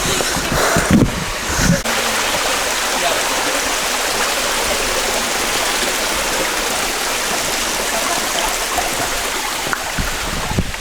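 Mountain creek water rushing steadily over rocks, a constant even wash of sound. A few low thuds in the first couple of seconds.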